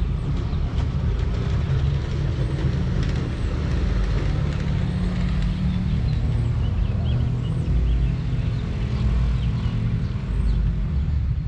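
Steady low outdoor rumble, with small birds chirping now and then above it.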